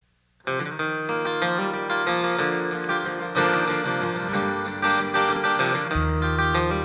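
Acoustic guitar playing a song's intro, starting about half a second in with a run of changing notes. An electric bass guitar comes in with low held notes near the end.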